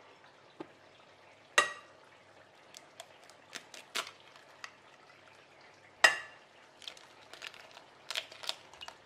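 Eggs cracked on a glass mixing bowl: two sharp knocks with a short glassy ring, about a second and a half in and about six seconds in, each followed by lighter clicks of shell being pulled apart. Under them is the faint steady sizzle of sliced potatoes frying in oil.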